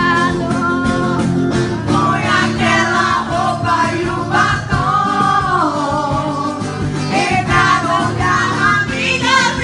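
Background song: a singer over a band with guitar and a steady beat.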